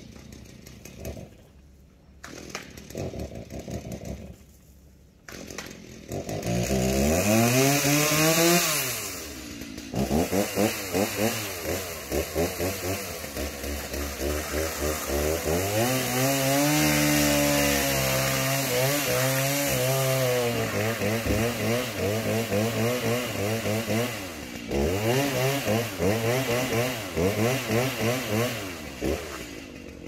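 A gas chainsaw starts running about six seconds in, revs up and cuts into a standing tree's trunk, its pitch sagging and recovering under load. Near the end it drops back and is revved in short blips.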